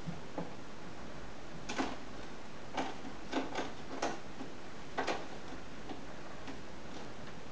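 Light clicks and taps at irregular intervals, about seven in all, over a steady background hiss: cats' claws catching and tapping on a sisal-wrapped cat tree as they play.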